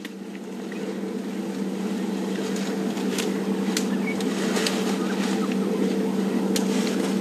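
Safari vehicle's engine running steadily: a low hum that grows louder over the first couple of seconds and then holds, with a few faint snaps over it.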